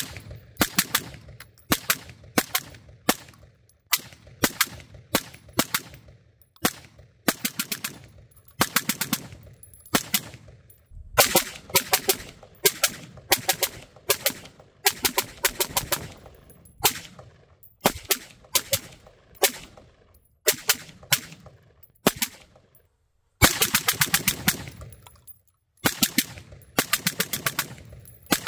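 PSA Sabre AR-15 rifle firing in quick strings of several shots, with short pauses between strings. About two-thirds of the way through comes one longer, faster string.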